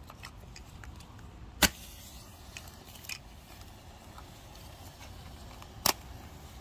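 Two survival matches struck on a matchbox striker strip about four seconds apart, each a sharp scrape that flares into a short fizzing hiss as the match head ignites.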